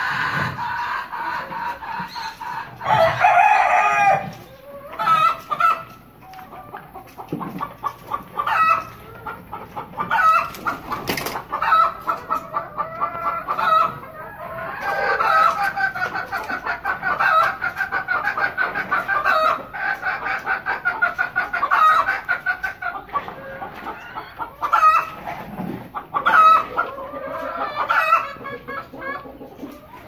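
Flock of Golden Misri hens and roosters clucking throughout, with roosters crowing now and then, the longest calls about three seconds in and again in the middle.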